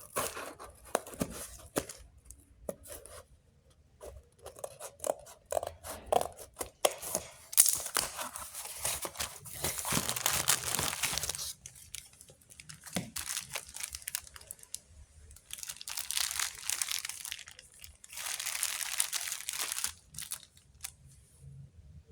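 Packaging being torn open and crinkled by hand: scattered clicks and rustles, then several longer tearing, crinkling stretches with short pauses between them.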